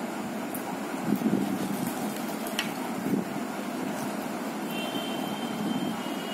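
Steady low rumble of background noise, with a few faint clicks.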